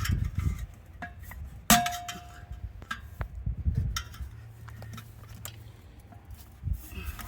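Metal parts and a screwdriver clinking and knocking as rear-wheel hardware (center caps and wheel simulators) is pried loose, with one loud metal clang about 1.7 s in that rings briefly.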